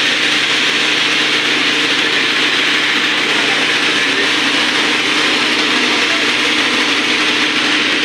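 Electric wheat flour mill (chakki pulveriser) running, grinding grain with a loud, steady rushing noise over a low, even hum.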